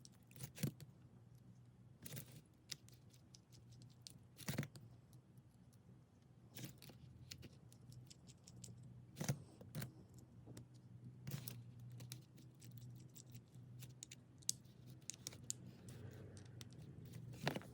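Faint small metal clicks and taps of a 1.5 mm hex wrench and tiny screws being refitted and tightened into the back of a Leatherman Tread Tempo watch: single sharp clicks every couple of seconds, then a quick run of small ticks near the end. A faint steady hum lies beneath.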